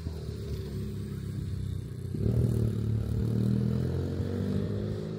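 A motor engine running, its pitch steady with a low hum, getting louder and changing note about two seconds in.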